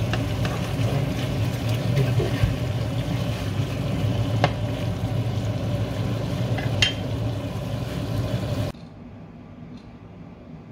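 Pork binagoongan sizzling in a nonstick frying pan as a wooden spatula stirs it, with a few sharp clicks. The sound drops away abruptly near the end.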